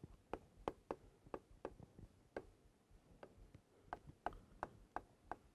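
Pen strokes on an interactive touchscreen whiteboard: faint, irregular ticks of the pen tip against the glass as words are written, about three a second.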